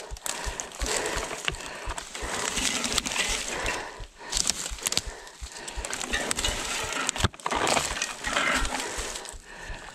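Mountain bike rolling down a dirt forest trail: continuous tyre noise over the ground, with frequent irregular rattles and knocks from the chain and frame as it goes over bumps.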